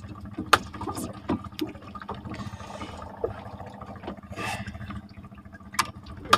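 Water splashing and trickling around a small fishing boat, with several sharp knocks as a freshly caught fish is handled in the boat, and a faint steady hum underneath.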